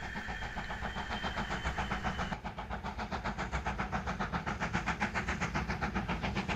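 4mm-scale model train running along the track, heard close up from a camera riding the layout: a steady low motor hum with a rapid, even clicking of the wheels on the rails.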